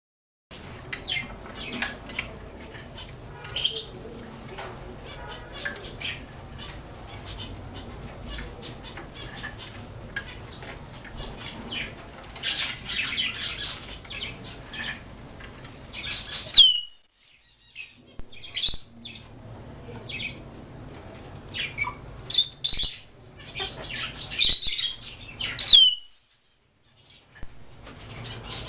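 African grey parrots calling: scattered squawks and short clicks over a low steady hum, with two loud whistles that swoop down and back up, one about two-thirds through and one near the end.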